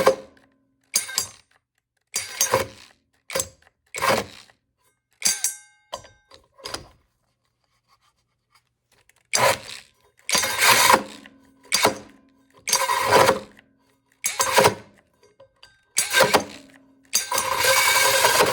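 Mellif 12-volt cordless drill driving a 5-inch hole saw into wood in short stop-start bursts, the saw grabbing and stalling again and again under the slow, part-pulled trigger. The bursts are short in the first half and longer near the end.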